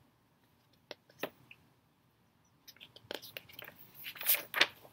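Hands handling a paperback picture book: a couple of faint clicks, then paper rustling and crackling as a page is turned near the end.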